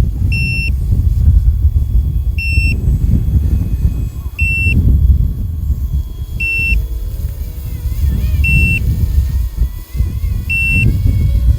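Strong wind buffeting the microphone. Over it, a high electronic beep from the RC helicopter's radio system repeats about every two seconds while the model carries out its GPS auto-landing.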